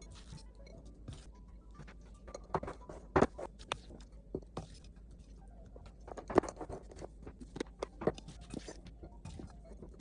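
Irregular light clicks and knocks of kitchen work, coming in scattered clusters with a few sharper knocks.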